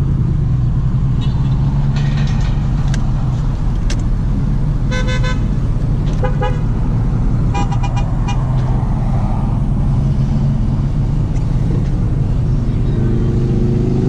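Steady low engine and road rumble of a vehicle heard from inside its cab, with a few short car-horn toots between about five and eight seconds in.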